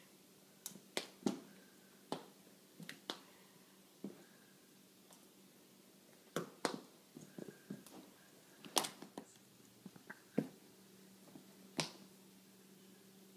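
Irregular sharp clicks and taps of a hollow plastic Easter egg being bitten, carried and batted by a puppy, over a faint steady hum.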